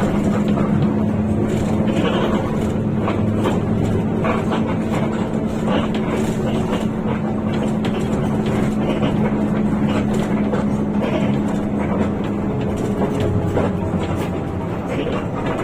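Rear-mounted engine of a Hino RK8 bus running steadily on the road, a constant low drone under road noise, with scattered light rattles and clicks.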